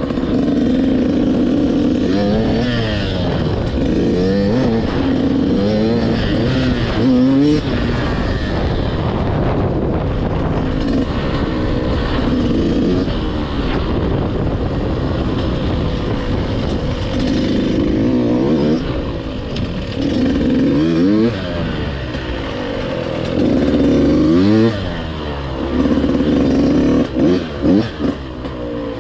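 KTM 85 SX two-stroke single-cylinder motocross engine revving up and down over and over, its pitch climbing in quick sweeps and then holding steady between them.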